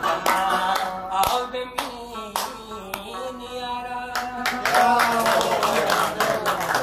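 Listeners clapping along by hand to a Pashto ghazal, sung over a plucked rabab.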